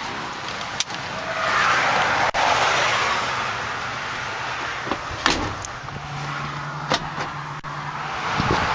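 Wind gusting on the microphone over background road noise, with a few sharp clicks and a low steady hum in the second half.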